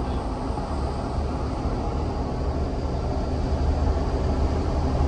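Cummins diesel engine running, heard from inside the truck's cab as a steady low drone that grows slightly louder near the end.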